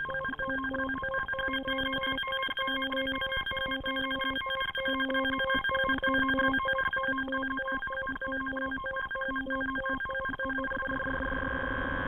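Hardware synthesizers playing an electronic drone with several steady overtones, over a lower sequenced note that pulses on and off in short, unevenly spaced blips. Near the end the blips stop and the drone thickens into a steady hum.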